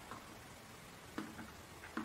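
Front-panel push buttons of a FNIRSI 1014D digital oscilloscope being pressed by a finger: a few faint clicks, the clearest a little over a second in.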